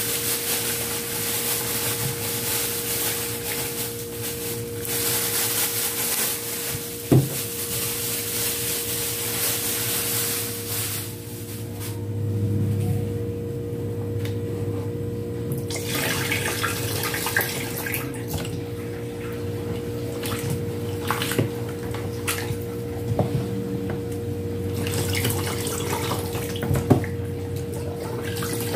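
Water sloshing and splashing in a pot standing in a stainless steel sink as sliced bamboo shoots are rinsed by hand, then the water is poured off into the sink. A sharp knock sounds about seven seconds in and another near the end, over a faint steady hum.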